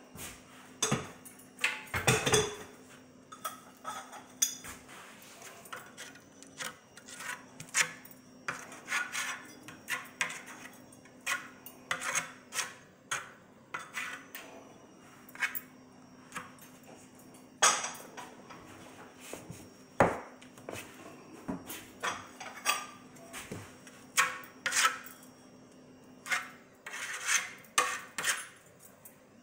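Ceramic wall tiles clinking and knocking as they are picked up, handled and pressed into thinset, with short scrapes between the irregular clicks.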